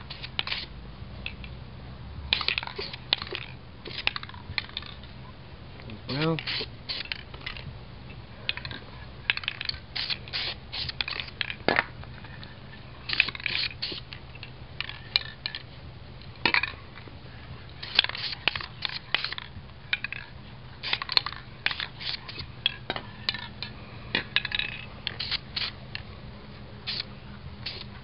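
Aerosol can of black spray paint being shaken and sprayed: the mixing ball rattles and the paint goes on in many short bursts, in irregular clusters.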